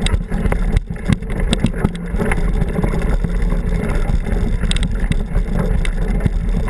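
Mountain bike riding over a rocky dirt trail: a steady low rumble with many sharp knocks and rattles from the rough ground.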